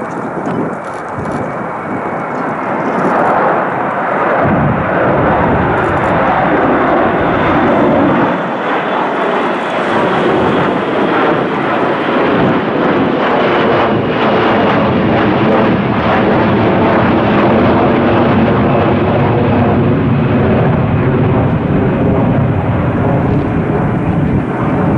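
Jet airliner's engines, loud and steady, building over the first few seconds and then holding.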